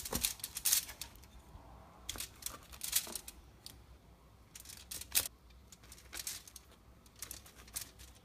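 Knife cutting a chocolate-glazed brownie into pieces: scattered sharp clicks and knocks as the blade goes through the hardened chocolate glaze and strikes the surface beneath.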